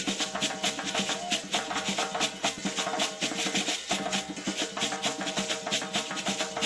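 Traditional West African dance drumming: a fast, dense drum rhythm with steady repeating strokes, and a pitched melodic line running above it.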